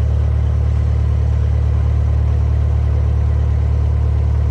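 Narrowboat's diesel engine running steadily, a low, even hum with a fast regular beat.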